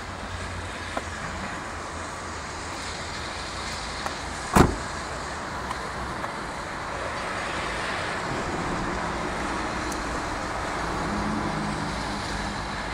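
Steam locomotive 60163 Tornado, an LNER Peppercorn A1 Pacific, standing at the platform with steam hissing steadily, growing a little louder in the second half. A single sharp bang sounds about four and a half seconds in.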